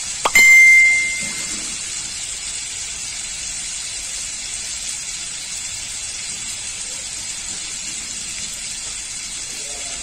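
Scad pieces sizzling steadily in oil and sauce in a wok, a continuous hiss. About a third of a second in, a single sharp metallic clink rings out and fades over about a second.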